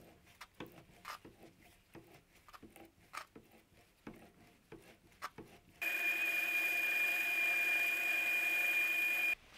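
Faint scattered scrapes and clicks as a small cutter is worked by hand in the bore of a steel lathe spindle. About six seconds in, a steady high-pitched machine whine with one strong tone starts: the mini lathe running while a diamond-coated pin works in the bore. It cuts off suddenly near the end.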